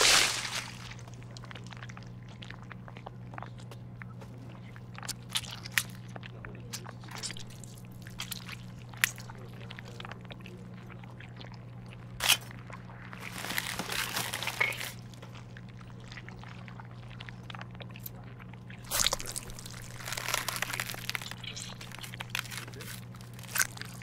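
Wet, squelching and crunching surgery sound effects with scattered sharp clicks, as tools work inside an opened cartoon brain, over a steady low hum. Two longer squishy, crunching stretches come about halfway through and again near the end.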